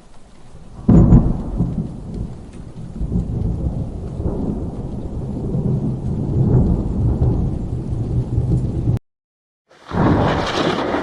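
Thunder from a lightning strike: a sudden crack about a second in, then a long rolling rumble with rain falling, which cuts off abruptly. After a short silence, a second, brighter clap of thunder begins near the end.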